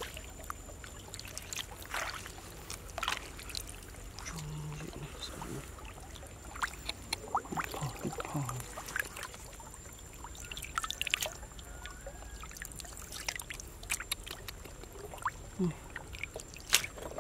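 Hands moving through shallow water, making small irregular splashes, trickles and drips.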